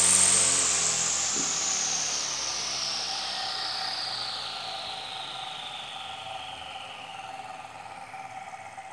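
DC 775 electric motor of a homemade grass trimmer coasting down after a run: a whirring whine that falls steadily in pitch and fades.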